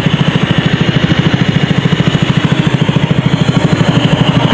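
Small engine running steadily with a fast, even chugging beat, driving the air compressor that feeds a diver's breathing hose.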